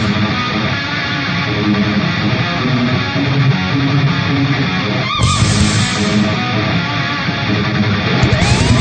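Heavy rock instrumental music led by electric guitar, with a pitch glide rising near the end.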